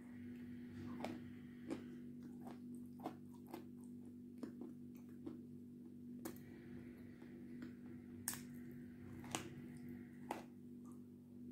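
Mouth sounds of someone licking, sucking and nibbling a pressed block of edible white clay coated with red clay: scattered wet clicks and smacks, with a small bite near the end. A steady low hum lies underneath.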